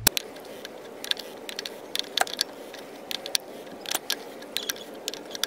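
Ratchet and socket on a plastic oil filter housing cap, giving a string of sharp, irregularly spaced metallic clicks as the socket is seated and the cap is tightened.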